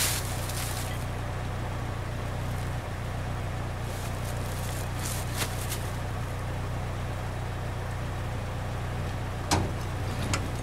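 Steady low hum of a vehicle engine idling, with a few light metallic clicks about four to six seconds in and one sharp clunk about nine and a half seconds in as the loaded trailer's tongue is let down onto the pickup's hitch.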